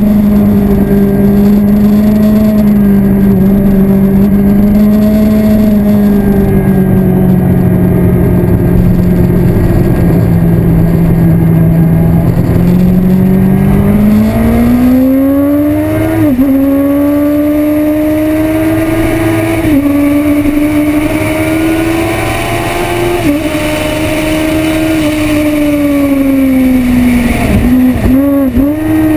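Yamaha R1 sport bike's inline-four engine running hard on a racetrack, heard from onboard with wind rushing over the microphone. The revs hold steady for the first half, then climb with brief dips at gear changes, and a quick run of downshifts comes near the end.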